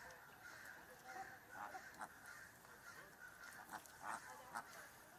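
A flock of flamingos calling: many faint, short honks overlapping, with a few louder ones about four seconds in.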